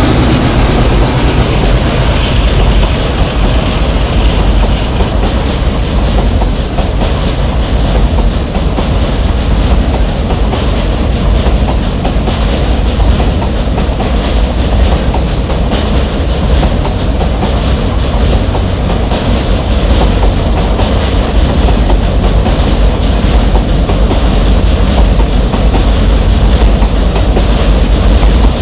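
Express train hauled by an ALCO WDG-3A diesel locomotive passing close by at speed. It makes a loud, steady rumble with a rhythmic clickety-clack of the wheels over the rail joints.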